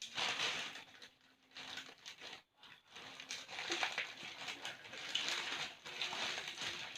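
Parcel packaging rustling, crinkling and scraping in irregular spells as it is handled and opened.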